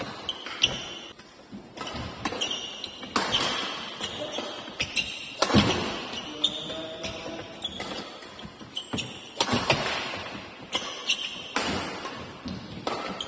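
Doubles badminton rally: rackets striking the shuttlecock in sharp, irregular hits, with short high squeaks of shoes on the court floor, echoing in a large indoor hall.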